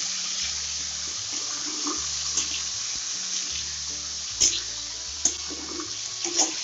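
Yardlong beans and potato sizzling in oil in a wok as they are stirred with a spatula. In the second half the spatula clacks against the pan three times.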